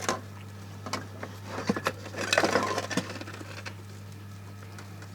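Rustling and small clicks as a long taped belt of resistors is handled, with the densest handling about two seconds in, over a steady low hum.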